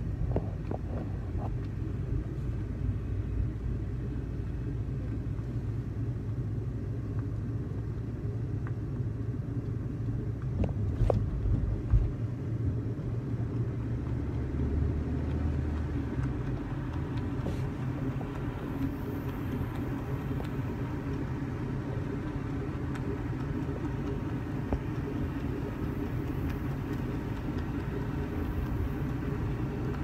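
Steady low rumble of a car driving along, engine and tyre noise heard from inside the cabin, with a couple of faint clicks partway through.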